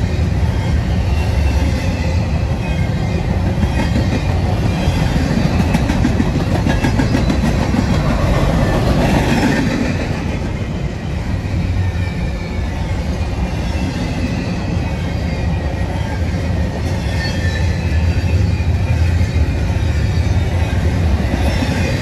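Double-stack intermodal container cars of a freight train rolling past close by: a steady loud rumble of steel wheels on rail, easing slightly about halfway through.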